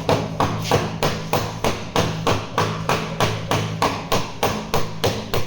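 Hammer tapping rapidly and evenly on car body panel metal, about three to four light blows a second, as in tapping down a dent during paintless dent repair.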